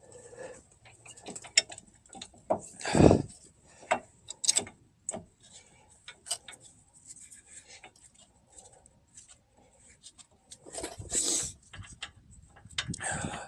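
Scattered metallic clicks and knocks of caliper bolts and hand tools being handled while a brake caliper is refitted and its bolts are started, with a loud knock about three seconds in and a longer scuffing rub around eleven seconds.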